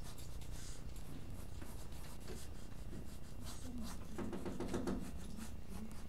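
Graphite from a mechanical pencil scratching across paper in quick, short sketching strokes.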